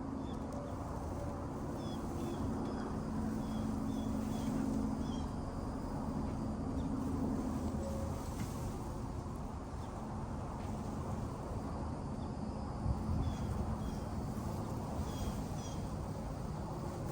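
Birds chirping in short, repeated calls over a steady low rumble. A humming tone is present for the first seven seconds or so, then fades.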